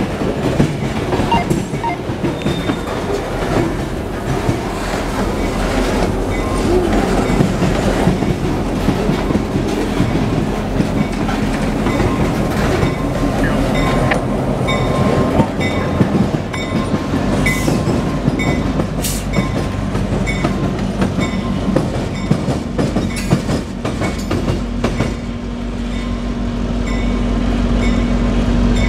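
CSX freight train rolling slowly past close by, covered hopper cars and then the diesel locomotive, with wheels clicking over rail joints and faint squealing tones. Over the last few seconds the locomotive's steady engine drone grows louder.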